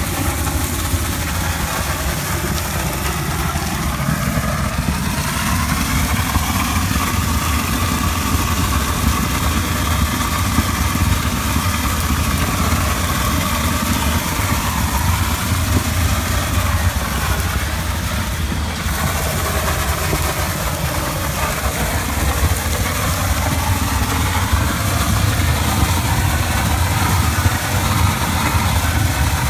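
Engine-driven shotcrete equipment running steadily: a low engine drone under a constant hiss.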